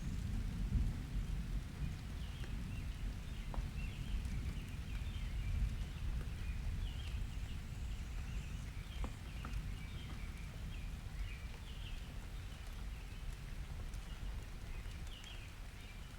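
Summer thunder rumbling low and slowly dying away, with a few scattered raindrop ticks and faint high chirps above.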